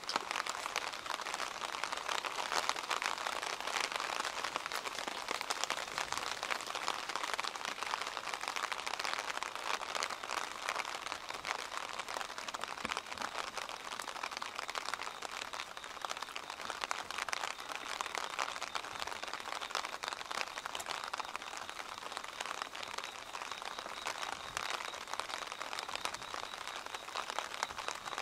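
Steady rain pattering as a dense crackle of small drops. Near the end a cricket starts a steady high trill.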